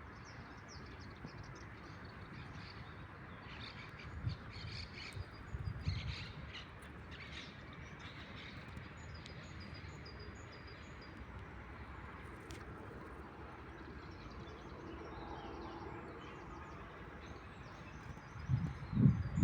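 Birds chirping and calling over a steady background hiss, with a run of quick, repeated high notes in the second half. Low thumps come in near the end.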